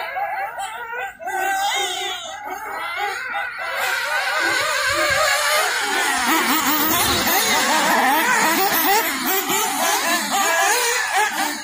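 Several nitro RC buggies' small glow-fuel two-stroke engines revving up and down together, a dense tangle of wavering high whines that grows louder about four seconds in.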